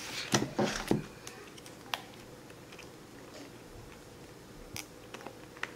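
Pliers crimping the cut end of a plastic spiral binding coil: a quick run of sharp clicks and taps in the first second, then single clicks about two and five seconds in.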